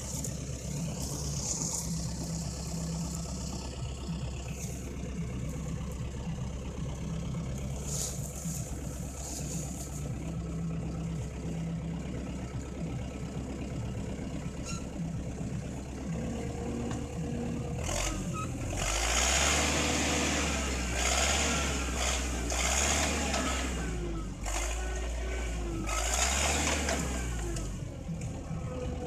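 Diesel engine of a Zetor 7745 tractor running steadily at close range, turning louder and harsher for several seconds in the second half before easing back.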